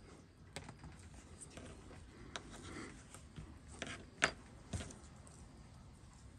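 Scattered small clicks and taps of watchmaker's tools against the parts of a mechanical watch during disassembly, the sharpest about four seconds in.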